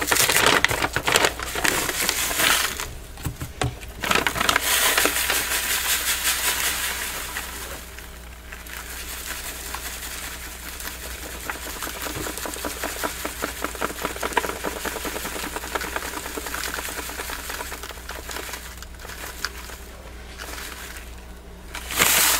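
Epsom salt crystals being poured from a scoop into a plastic tub, a dense patter of granules. It is louder near the start and from about four to seven seconds in, then lighter, and louder again at the very end.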